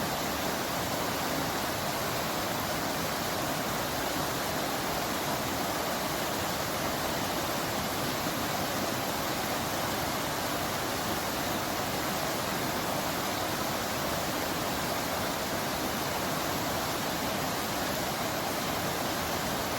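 Steady rain falling, a constant even hiss with no separate drops, thunder or other sounds standing out.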